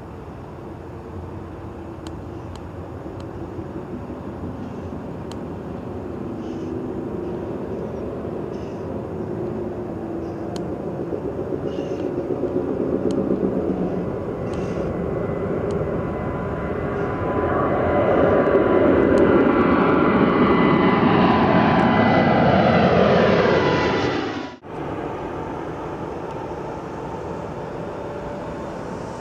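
Boeing 787 Dreamliner's twin turbofan engines at takeoff thrust, the noise building steadily with a fan whine that rises in pitch as the jet climbs out toward and over the listener. About three-quarters in the sound drops off suddenly, then settles to a lower steady rumble as the jet climbs away.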